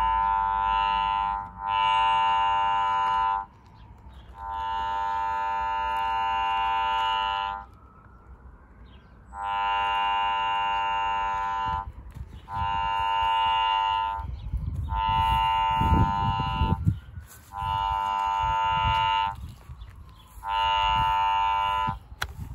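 Radiodetection C.A.T4 cable locator's speaker sounding a steady buzzing tone in about eight bursts of one to three seconds, cutting in and out as the locator is swept over the ground. The tone is its alert that it is picking up the signal of a buried cable.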